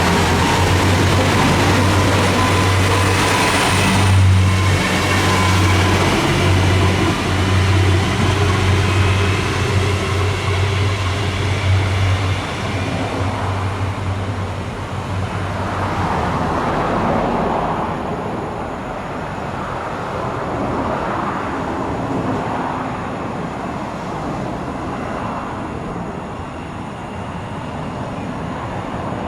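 KiHa 200 series diesel railcar running, its diesel engine giving a strong low drone over the rumble of wheels on rail. The engine drone drops away a little past halfway, and the rail noise carries on, slowly fading toward the end.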